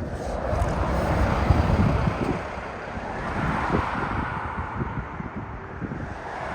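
Boeing 747-400 airliner's jet engines rumbling, with heavy wind buffeting on the microphone; the engine noise swells twice.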